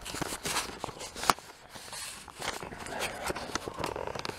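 Handling noise from a handheld camera being moved and repositioned: rustling with scattered small knocks and clicks, one sharper click about a second in.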